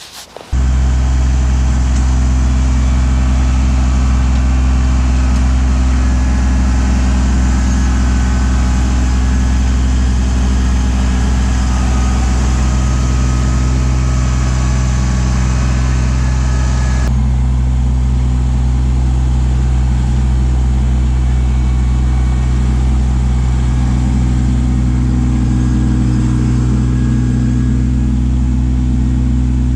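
Kubota LX2610 compact tractor's three-cylinder diesel engine running steadily. Its tone shifts abruptly a little past halfway.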